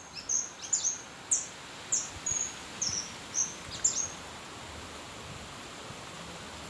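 A bird chirping repeatedly: short, high, falling chirps about twice a second, stopping about four seconds in, over steady outdoor background noise.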